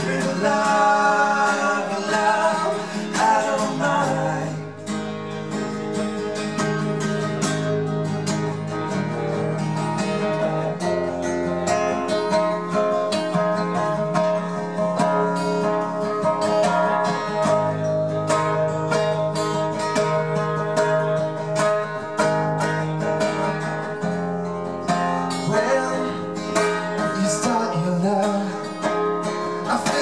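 Two acoustic guitars strummed together in a live duo performance, with male voices singing for the first four seconds and again near the end; in between, an instrumental guitar passage.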